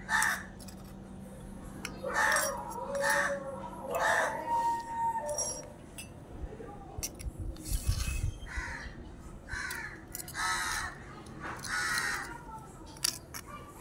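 Crows cawing repeatedly in several short runs of harsh calls, with a few faint clinks of a small spoon against the miniature bowls.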